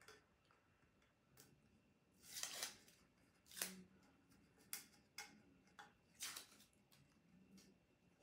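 Tape being peeled off a freshly heat-pressed sublimation tumbler: a series of short ripping and crinkling sounds, the longest a little over two seconds in.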